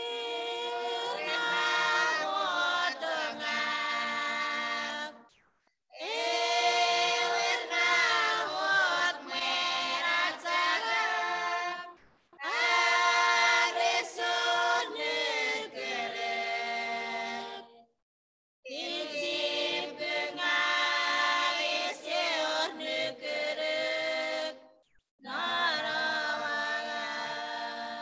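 A women's group singing a Chuukese hymn a cappella. The song comes in five phrases of about five to six seconds each, and each phrase cuts off to silence before the next.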